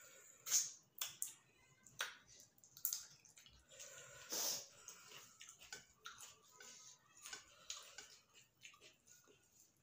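Wet mouth sounds of people eating rice and chicken curry by hand: lip smacks and chewing, with sharp smacks about once a second and a longer, louder wet sound about four seconds in.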